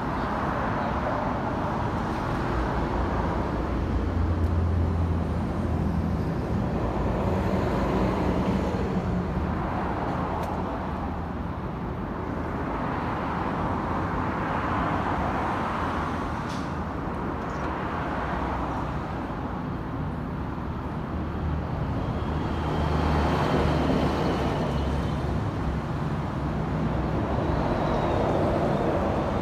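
Passing road traffic: cars go by one after another, their noise swelling and fading every few seconds over a steady low hum.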